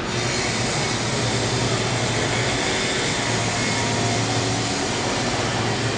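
A loud, steady mechanical whoosh with a low hum under it, starting and stopping abruptly.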